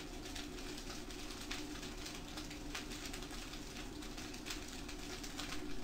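Fried rice sizzling faintly in a wok over a gas flame, with scattered light crackles over a steady low hum.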